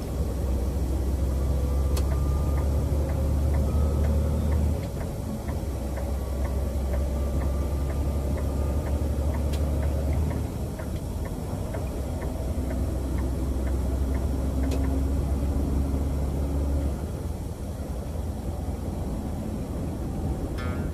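Truck engine heard from inside the cab while driving, a strong steady low rumble that eases back three times, about five, ten and seventeen seconds in. Faint regular ticking runs through the first half.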